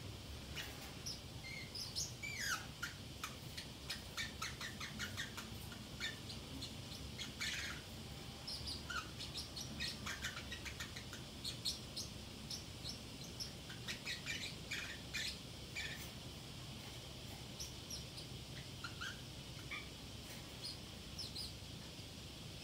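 Pacific parrotlet chattering to itself in short, high chirps and squeaky calls, busy for the first sixteen seconds or so and then only now and then. A faint steady hum underlies it.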